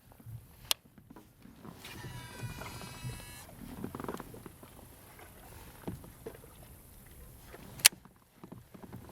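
Handling sounds on a fishing kayak: two sharp knocks, one under a second in and a louder one near the end, and a brief whirring about two seconds in.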